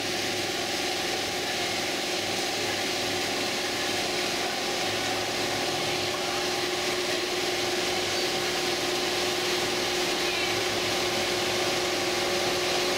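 Richpeace L1500 high-speed multi-head quilting machine running and stitching: a steady mechanical noise with a constant hum underneath.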